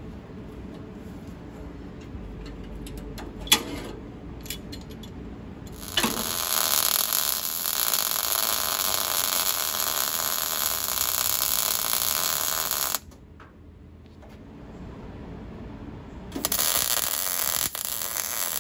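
MIG welder welding a sheet-steel floor panel in, a steady sizzling that starts about six seconds in, stops around thirteen seconds and starts again about three seconds later. Before the welding, a few sharp clicks and knocks as the panel is handled.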